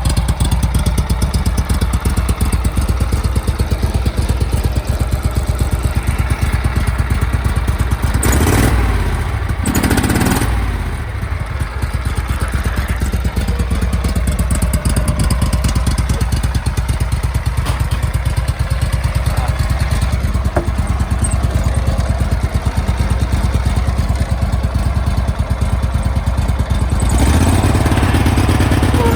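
Cub Cadet 1861 garden tractor's 18 hp Kohler Command engine running steadily with a fast, even beat, the note shifting briefly about eight to ten seconds in and getting louder and deeper near the end.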